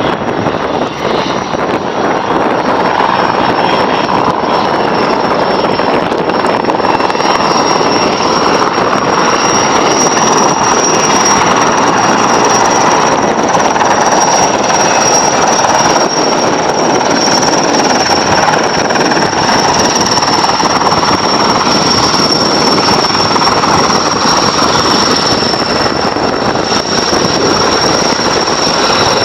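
Erickson S-64 Air-Crane heavy-lift helicopter approaching, its twin turboshaft engines and rotors running: a steady high turbine whine over loud engine and rotor noise, rising a little in the first couple of seconds and then holding steady.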